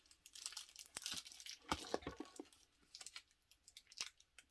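Plastic wrapping crinkling and rustling in irregular bursts as it is handled and pulled at on a handbag strap, with a few sharp clicks.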